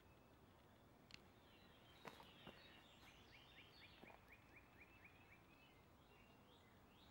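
Near silence with faint bird chirps: a quick run of repeated short chirps, about six a second, starting about three seconds in, with a few soft clicks before it.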